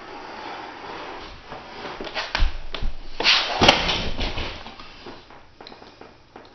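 Sheet vinyl flooring being handled and worked over the floor for cutting: rustling and scraping, with a few knocks about two and a half seconds in and a louder scrape with a sharp click just after three seconds.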